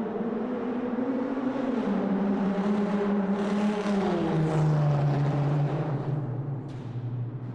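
Car engine running in a tunnel, its note stepping down in pitch twice. The sound swells to a peak about two-thirds of the way through, then eases off near the end.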